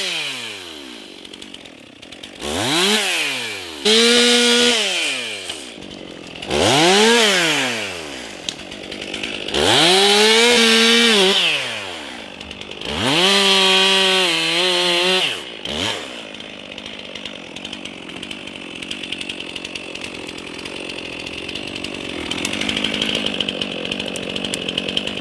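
Two-stroke chainsaw revved up and let back down about six times, several bursts held at full throttle for a second or two as it cuts into a felled pine trunk. After about 16 seconds it runs lower and steadier.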